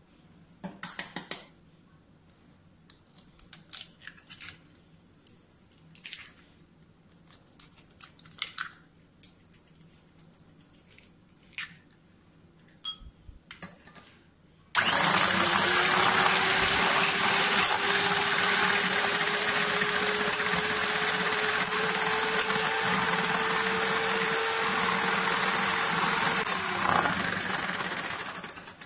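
Scattered light taps and clicks as eggs are cracked into a glass bowl. About halfway through, an electric hand mixer starts and runs steadily, its beaters whipping the eggs to a froth. Its hum creeps slowly up in pitch, then drops as it winds down just before the end.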